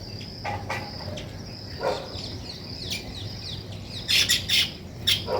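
Small birds chirping in short, sharp calls, with a loud burst of chirps about four seconds in, over a steady high-pitched insect trill.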